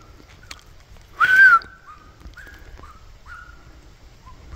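Bull elk bugling during the rut: a loud, high whistling call about a second in that rises and falls. Several shorter, fainter calls follow, each sliding down in pitch.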